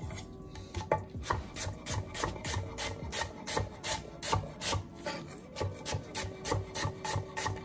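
Chef's knife slicing an onion on a wooden cutting board, each cut ending in a knock of the blade on the board, about three a second in a steady rhythm.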